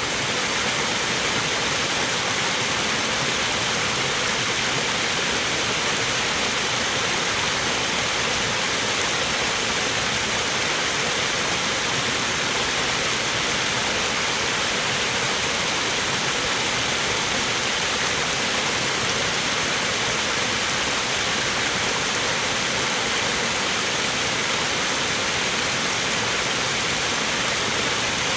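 Small rock waterfall pouring into a garden pond: a steady, unbroken splashing rush of falling water.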